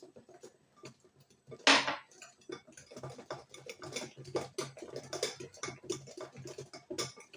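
A utensil beating a batter of eggs, sugar and oil in a bowl by hand, with rapid, irregular clicks against the bowl's sides, while the oil is mixed in. One louder brief noise about a second and a half in.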